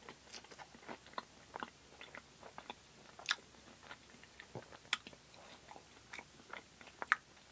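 Close-miked chewing of crinkle-cut fries: irregular small crunches and wet mouth clicks, a few sharper ones about three, five and seven seconds in.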